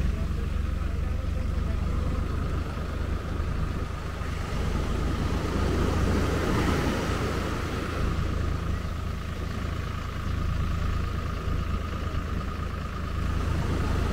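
Surf washing up a sandy beach over a steady low wind rumble on the microphone, with a wave breaking about halfway through. A thin steady whine runs underneath.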